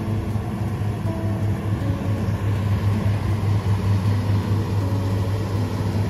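Combine harvester running steadily while harvesting soybeans, a deep even machine hum.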